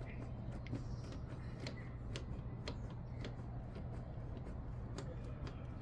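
Irregular light clicks and ticks from a hand-worked glue-tab dent puller on a car body panel, over a steady low hum.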